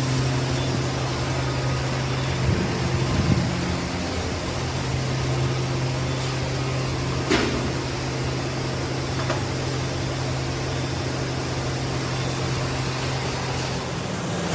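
Steady low hum of workshop machinery running, with a few soft knocks a few seconds in and one sharp click about halfway through.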